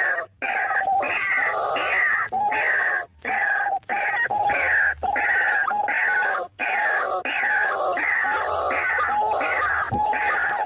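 White-breasted waterhen (ruak-ruak) calling: a continuous series of harsh, repeated notes, about two a second, with a few brief breaks.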